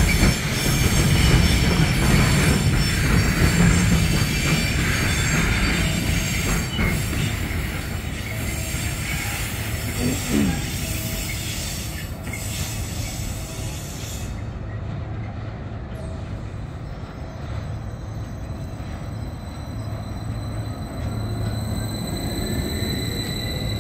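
Stadler KISS double-deck electric multiple unit standing with its equipment running, then pulling away from the platform; in the second half a thin rising whine comes in as it accelerates.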